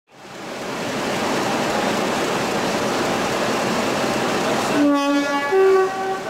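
Class 50 diesel locomotive running steadily beside the platform. About five seconds in a two-note horn sounds, a held low note and then a higher one.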